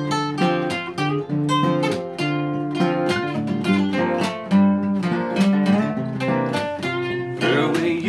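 Two acoustic guitars playing together in an instrumental break: strummed chords in a steady rhythm with clear held notes ringing over them.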